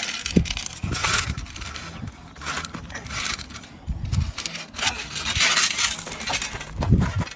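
A metal spade scraping and pushing through loose gravel, the stones crunching and rattling in a series of scrapes.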